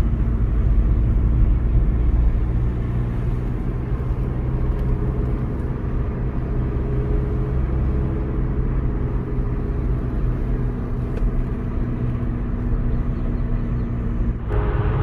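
A car driving: steady engine and road rumble. Music comes in near the end.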